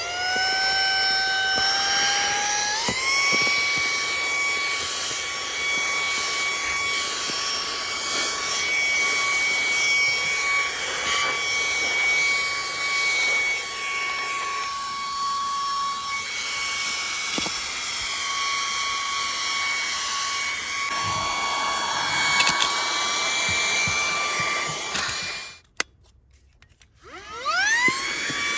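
Small cordless handheld vacuum cleaner's motor running with a steady high whine. It spins up at the start, steps up to a higher speed about three seconds in, cuts off near the end and then spins up again.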